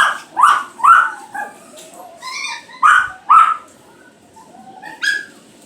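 A series of short, high-pitched, meow-like cries in quick runs, about seven in all, with a pause in the middle and one more near the end.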